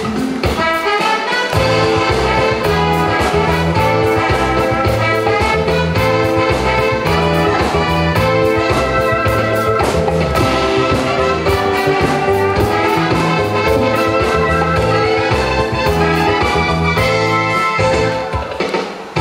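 Upbeat instrumental introduction of a Korean pop song, a melody line over a steady beat, with no singing yet. The music dips briefly just before the end.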